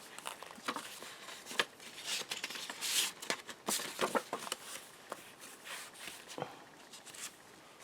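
Paper rustling and sliding as handmade journal pages, an envelope and cards are handled: irregular soft rustles and light taps that thin out toward the end.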